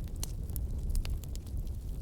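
Burning wood crackling, with scattered sharp pops and ticks over a steady low rumble of the fire.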